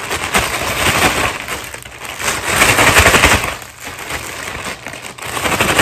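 Snow crab legs being cracked and broken open close to the microphone: a dense run of sharp cracks and crunching, loudest about two to three seconds in.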